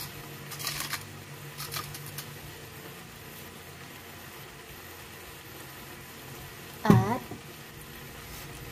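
Low, steady sizzle of beef strips frying on low heat, with a few light shakes of salt sprinkled from a plastic bag onto cucumber slices in the first couple of seconds. About seven seconds in comes a brief voice sound.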